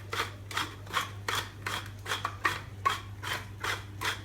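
Pepper mill being twisted to grind pepper, a rasping grind repeated about three times a second.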